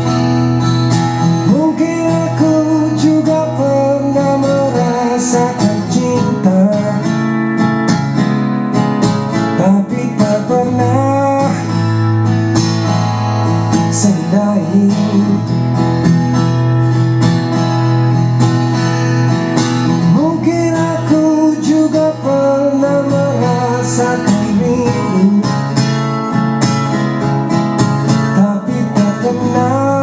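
Acoustic guitar music with singing, played back through small two-way bookshelf speakers driven by a TDA7498 class D amplifier.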